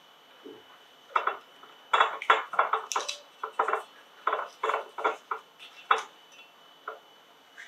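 Light, irregular crinkling and small taps as a paper tea bag is handled in a glass pitcher and its string and tag are hooked over the handle, most of them in a cluster in the middle.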